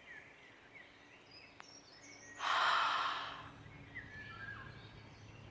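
One long open-mouthed exhale with a soft breathy hiss, like fogging a mirror: the first stage of ujjayi breathing, the throat slightly narrowed. It comes about two and a half seconds in and fades over about a second.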